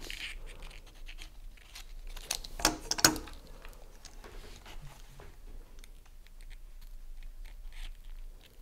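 Handling noise at a workbench: a few sharp clicks and knocks of hand tools and the metal plug and cable being moved about, bunched two to three seconds in, then faint rustling.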